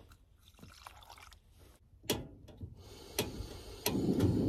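Water poured into a saucepan, faintly at first. Then several sharp clicks at a two-burner propane stove, and about four seconds in a steady low rushing noise as the burner lights.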